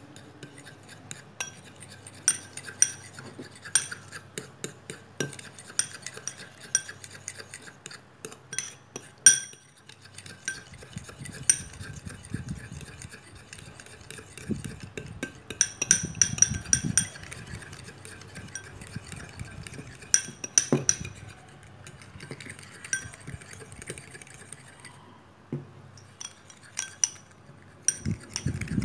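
A metal fork whisking instant coffee, sugar and water in a ceramic bowl, with quick irregular clinks and scrapes against the bowl's side. It pauses briefly about 25 seconds in, then starts again.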